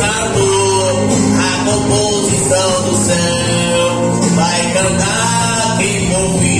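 A man with a hoarse voice singing a Portuguese Christian hymn into a microphone, holding long notes over recorded instrumental accompaniment.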